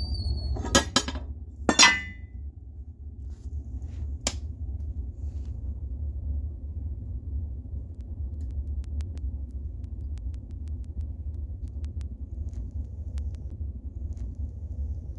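A few sharp knocks or clinks in the first few seconds, the loudest near two seconds in with a brief ring, over a steady low hum.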